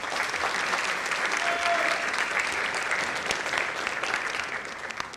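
Audience applauding, dense and steady, fading out near the end.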